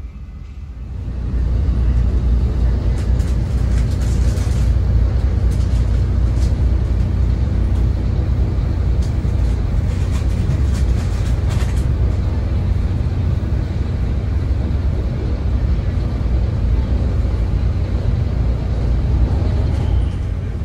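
Train running close by with a heavy, steady low rumble that builds about a second in, with scattered clicks and rattles through the first half.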